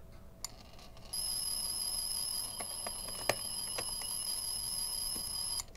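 Star Trek Science Tricorder replica toy playing an electronic sound effect. A click comes first, then a steady, high-pitched electronic whine of several held tones with a few faint clicks over it, which cuts off suddenly after about four and a half seconds.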